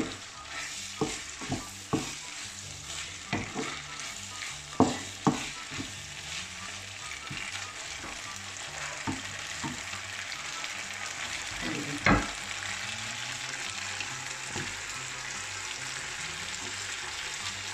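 Fusilli with chicken and courgette sizzling in a non-stick frying pan as a wooden spatula stirs it, knocking against the pan several times in the first few seconds. There is a louder knock about twelve seconds in, then steady sizzling.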